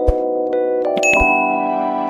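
Background music of bell-like chiming tones over held notes, with a soft low beat.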